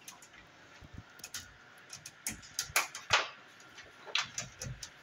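Scattered, irregular light clicks and taps: handling noise as a multimeter and its probe leads are worked one-handed around the air handler's metal cabinet.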